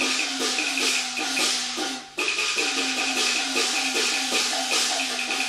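Cantonese opera percussion section playing a fast, even pattern of gong and cymbal strokes, each gong stroke sliding down in pitch, over a rapid ticking beat. The pattern breaks off briefly about two seconds in, then resumes.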